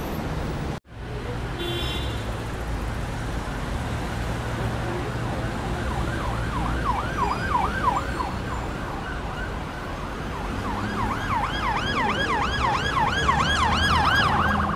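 City street traffic rumble with an emergency vehicle's fast yelping siren, about three sweeps a second, heard briefly about six seconds in and again from about ten seconds, louder near the end. The sound cuts out for a split second about a second in.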